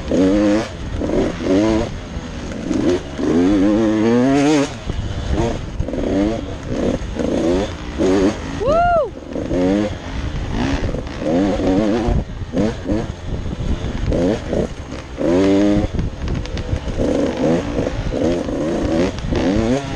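2023 GasGas 85 cc two-stroke motocross bike engine revving up and down continually as it is ridden along a dirt trail, heard from the rider's helmet camera. A short rising-and-falling tone cuts through about nine seconds in.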